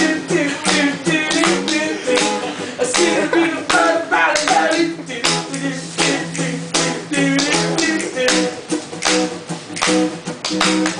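Music: acoustic guitar strummed with sharp percussive taps between the sung verses of a homemade song.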